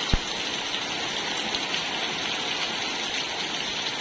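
Steady downpour of rain on a concrete yard and the pots and pans standing in it, an even hiss of drops. A single short low thump comes just after the start.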